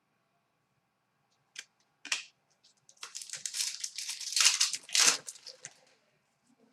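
Two light clicks, then about three seconds of crinkling and tearing as a foil trading-card pack wrapper is handled and torn open.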